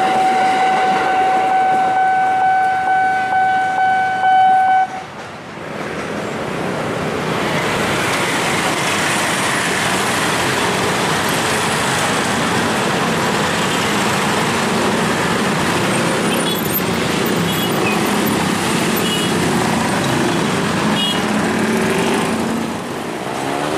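A level crossing's steady warning tone sounds as a commuter train clears the crossing, and cuts off about five seconds in. Then a crowd of motorcycles and cars moves across the tracks, engines running, with a few short horn toots.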